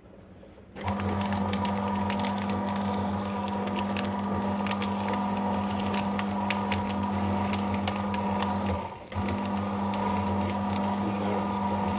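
Electric paper shredder shredding thermal-print ECG paper: the motor starts about a second in and runs with a steady hum and a dense crackle of paper being cut. It cuts out briefly near nine seconds and starts again.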